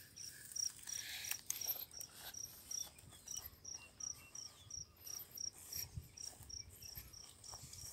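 A cricket chirping faintly in an evenly spaced series of high-pitched pulses, with soft footsteps and rustling through grass.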